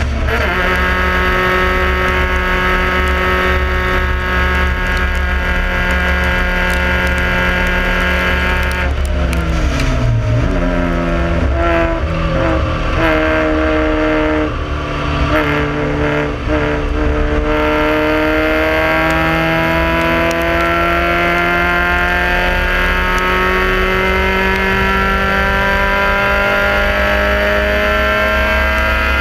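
Toyota Starlet EP91's 4E-FE four-cylinder engine under racing load, heard from inside the car. It holds a steady high note, then falls sharply about nine seconds in, with several breaks over the next few seconds as it changes down. From about fourteen seconds in, the revs climb in one long, slow rise.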